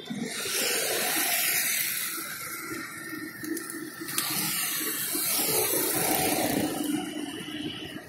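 A flock of feral pigeons beating their wings as they take off and land, a rushing whoosh that swells twice, about half a second in and again around four seconds in.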